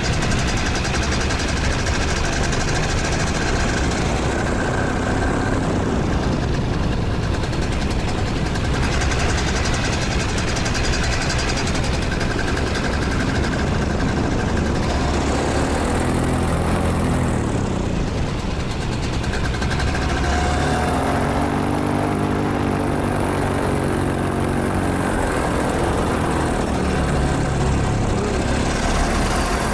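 Paramotor engine and propeller running under heavy wind rush. The engine's pitch swells and falls about halfway through, and again more strongly a few seconds later.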